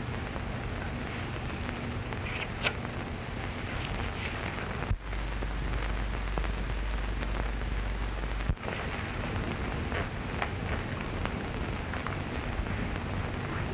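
Surface noise of a worn 1929 film soundtrack: a steady hiss with scattered crackles and a low hum. The sound drops out for an instant about five seconds in and again about three and a half seconds later, with a deeper hum in between.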